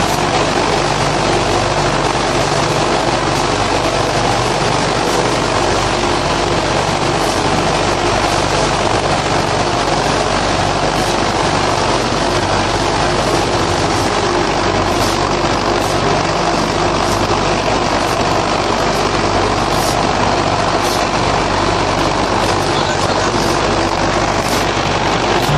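Paver block making machinery running with a loud, steady drone and hum. Scattered short clicks and scrapes come through, mostly in the second half, as the concrete mix is pushed around by hand.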